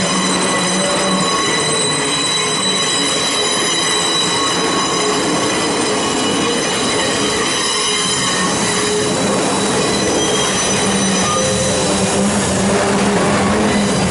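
Freight wagons and a DFB-class diesel locomotive rolling slowly past on a ferry's rail deck, the wheels squealing on the rails with several steady high-pitched tones over a continuous rumble and low hum.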